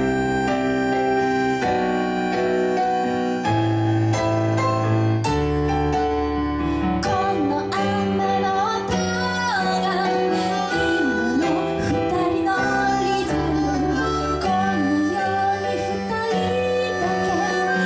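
Live band music: piano chords held and changing every second or two, joined about seven seconds in by a wavering lead melody with vibrato.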